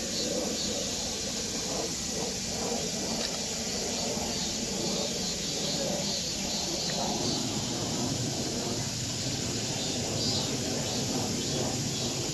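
Outdoor ambience: a steady high hiss with faint, indistinct distant voices.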